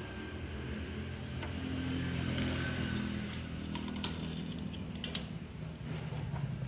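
Metal tools and parts clinking a few times, in small clusters, over a steady low hum.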